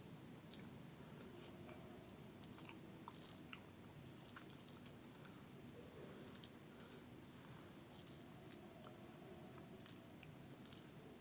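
Faint chewing and mouth sounds of a person eating: scattered soft wet clicks and smacks over a low steady room hum.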